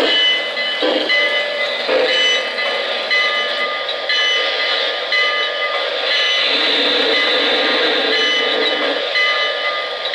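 Rail-Sounds steam effects from a Lionel O-gauge NYC Commodore Vanderbilt J1e Hudson standing still: a steady steam hiss with a short ringing tone repeating about once a second.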